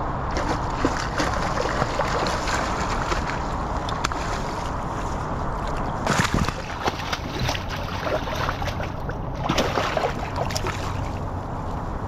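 River current rushing and sloshing around a wading angler's legs. Sharp splashes come about six seconds in and again near ten seconds, as a hooked chum salmon is played in at the surface.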